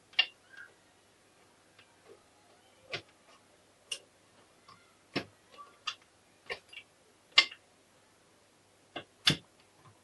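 Honda MT5 gearbox parts being handled and fitted into the open engine crankcase by hand: irregular sharp metal clicks and clinks, about a dozen, with the loudest knock about three-quarters of the way through.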